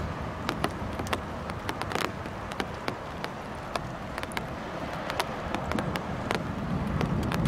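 Raindrops tapping irregularly on a hard surface close to the microphone, sharp clicks over a steady hiss of rain during a night thunderstorm. A low rumble builds up near the end.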